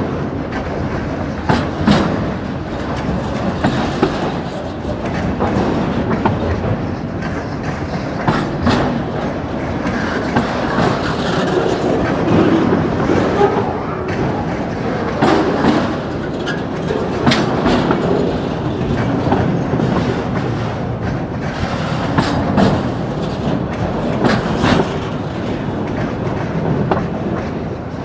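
Autorack freight cars rolling past close by: a steady rumble of steel wheels on rail, with irregular clacks and knocks as the wheels cross rail joints.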